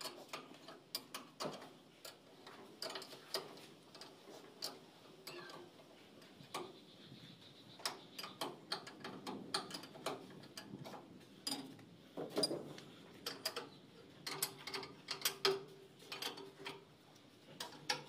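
A wrench turning the screw of a bearing puller fitted to a pulley hub on a Swaraj 8100 combine harvester: a run of sharp, irregular metal clicks and clinks.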